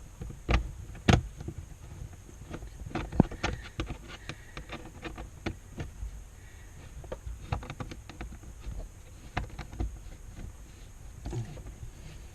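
Scattered, irregular clicks and knocks of a T20 Torx screw being fitted and driven into a plastic under-dash trim panel with a hand tool, the sharpest knocks about half a second, a second and three seconds in.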